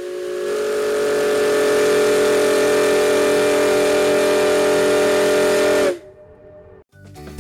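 Steam whistle of the SS Virginia V blowing one long blast, several tones sounding together over a rush of steam hiss; it swells over the first two seconds, holds steady, then cuts off sharply about six seconds in.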